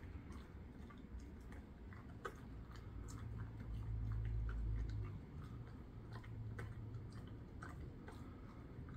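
A dog chewing a Whimzeez chew treat: irregular clicks and crunches of teeth on the treat. A low rumble rises for a second or two around the middle.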